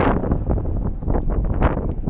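Strong wind buffeting the microphone in irregular gusts, a loud rumbling rush.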